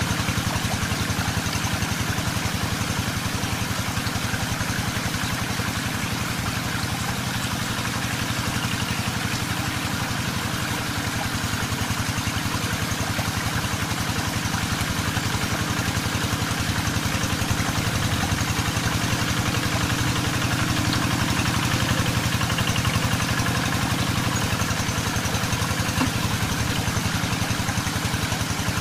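Two-wheel hand tractor's engine running steadily as the tractor drives through wet paddy mud, with a fast, even beat and no change in speed.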